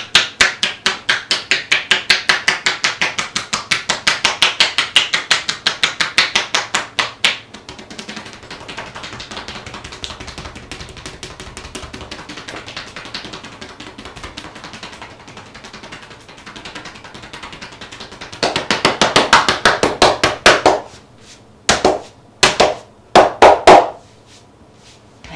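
Massage therapist's hands percussing a client's back and shoulders (tapotement), a fast even run of several strikes a second as the closing step of an aromatherapy treatment. A quieter stretch of hands rubbing follows. Then comes another quick run of strikes and a few separate firmer pats on the shoulders near the end.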